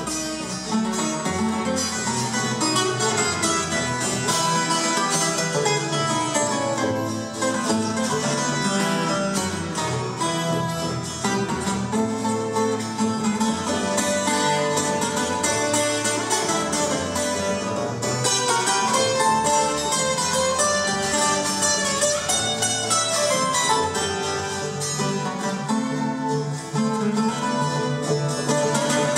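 Colombian Andean string music played live: tiples and requinto picking and strumming fast melodic lines over a walking double-bass line.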